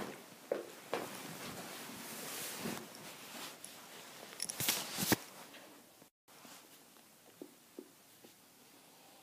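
Scattered light knocks, clicks and rustling in a small room, with a cluster of sharp clicks about four and a half to five seconds in. The sound cuts out completely for a moment about six seconds in and is fainter afterwards, with only a few soft ticks.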